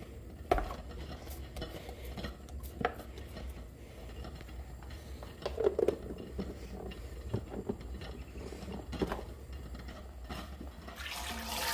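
Scattered light knocks and clatter of kitchenware being handled. A plastic food container is set down and its snap-on lid pressed shut, then a stainless steel mixing bowl is set into a steel sink.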